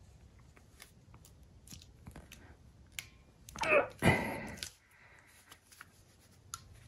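Titan hand crimping tool clicking in scattered sharp clicks as its handles are squeezed hard to crimp a terminal onto an ignition wire. About four seconds in there is a louder burst, a brief strained vocal sound with a sharp snap, as the crimp is forced fully closed.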